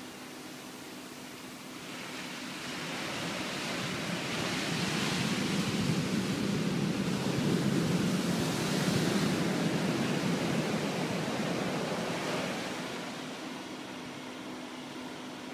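Ocean surf: waves breaking and washing up the sand. The rush builds from about two seconds in, is loudest through the middle and fades away near the end.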